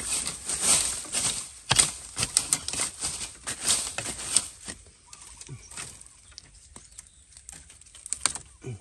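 Dry bamboo twigs and fallen leaves crackling and rustling as they are pushed through and handled, in irregular bursts. The crackling is dense over the first four or five seconds, then sparser and quieter.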